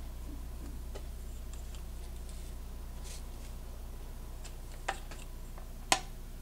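Light clicks and taps from handling a short USB cable and its connectors while measuring it, the sharpest about six seconds in, over a steady low hum.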